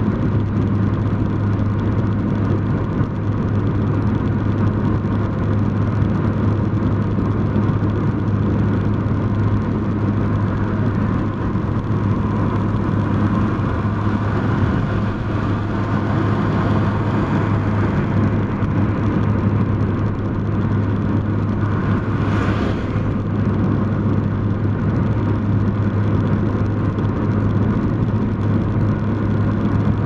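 Car cruising at motorway speed, heard from inside the cabin: a steady drone of engine and tyre-on-road noise with a constant low hum. A brief higher hiss comes about three quarters of the way through.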